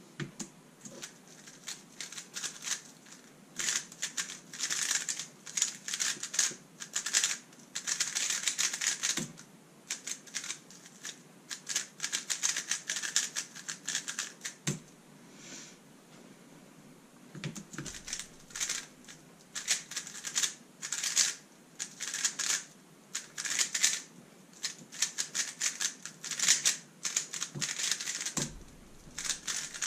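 A Thunderclap v3 M magnetic 3x3 speed cube being turned fast: rapid plastic clicking and clacking of the layers in long bursts, with a pause of about two seconds midway.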